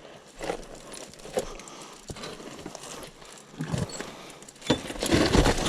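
Irregular scuffs and light knocks on dirt and rock, growing louder and busier near the end.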